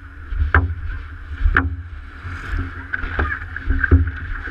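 Water slapping and knocking against a stand-up paddleboard's hull, heard through a GoPro mounted on the board, with several sharp knocks over a steady low wind rumble on the microphone and a steady hiss of moving water.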